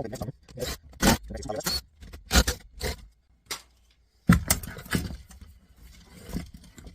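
Knocks, clicks and scraping of plastic and metal parts as the front panel circuit board is worked loose from a stereo unit's casing, with a longer scraping rattle about four seconds in.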